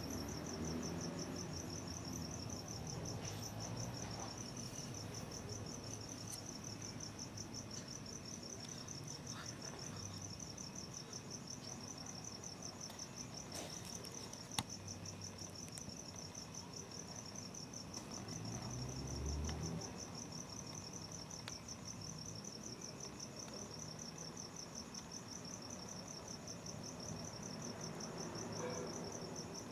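Crickets chirping in a steady, rapidly pulsing high trill, with low rumbles underneath and one sharp click about halfway through.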